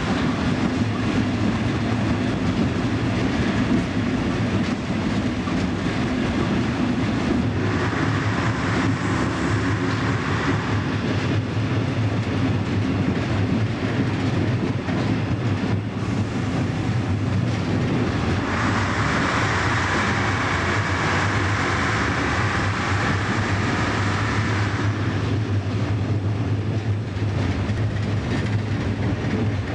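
Steady running noise of a DR class 772 railbus under way: a diesel engine drone with wheel and rail noise. A louder rushing swells from about eight to ten seconds in and again from about eighteen to twenty-five seconds in.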